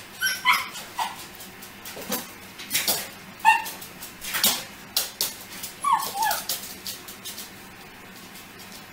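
Cockapoo giving short high yips and whines, excited at a toy held out of its reach. Sharp clicks come in between the calls, from its paws landing on the tiled floor as it jumps.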